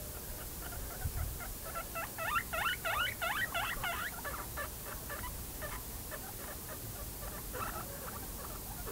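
Guinea pig squeaking: a quick run of about seven high calls, some four a second, about two seconds in, followed by fainter, sparser squeaks.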